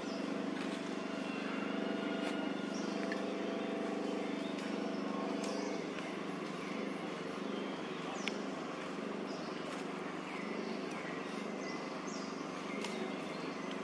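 Outdoor ambience: a steady low mechanical hum, joined by short high chirps that repeat every second or so.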